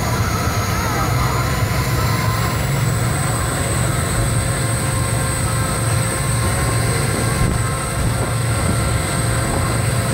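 Tour speedboat's engines running steadily at speed, a loud constant low drone, with wind buffeting the microphone and a thin steady high whine above.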